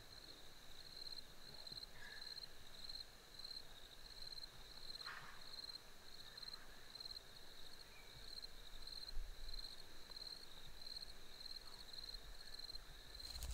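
Insect chirping: a high, steady pulsing chirp repeating about twice a second, faint in the quiet evening air.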